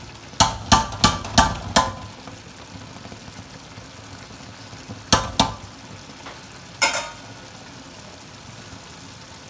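A metal slotted spoon knocking against the rim of an aluminium cooking pot: five quick clanks in the first two seconds, two more about halfway and a last one a couple of seconds later. Underneath is a steady hiss of the pulao's rice and water simmering in the pot.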